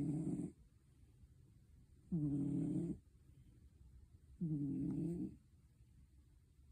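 A sleeping pet snoring: three short, pitched snores at an even pace, one about every two and a quarter seconds, each lasting under a second.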